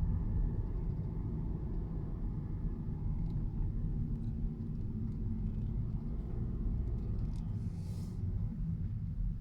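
Steady low rumble of a Skoda Superb Mk II with a 1.8 TSI petrol engine, heard from inside the car, with a few faint ticks and a short hiss about eight seconds in.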